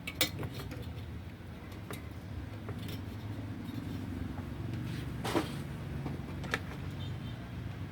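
Scattered light clicks and knocks of computer parts being handled and fitted, about half a dozen in all, over a steady low hum.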